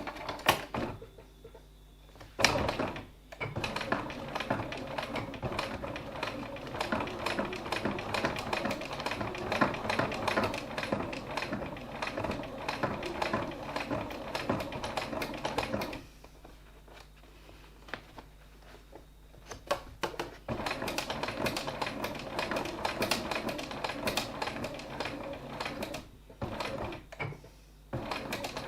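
Sewing machine top-stitching a side seam of a wallet, running in a fast steady stitch rhythm. It starts a couple of seconds in after a few clicks, stops for about four seconds midway, then runs again with short stops near the end.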